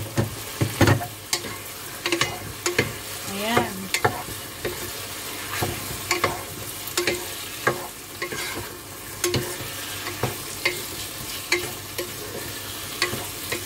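Chicken pieces sizzling as they brown in a stone-coated pot. A wooden spatula scrapes and knocks against the pot again and again as the pieces are stirred and turned.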